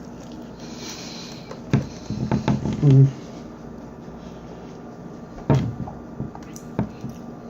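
Eating sounds at a table: several separate short knocks and clicks of tableware being handled, a cluster of them a couple of seconds in and two more later on.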